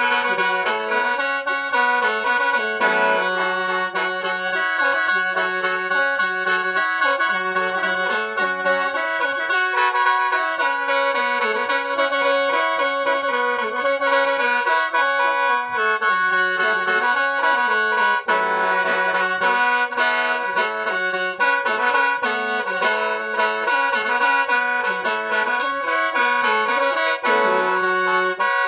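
Khaen, the Lao bamboo free-reed mouth organ, played solo: a stepping melody in the low register over steady drone notes held the whole time, without a break.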